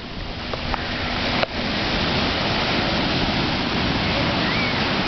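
Ocean surf washing and breaking around waders in shallow water: a steady rush of water that builds over the first second, broken once by a sharp click and a brief dropout about a second and a half in.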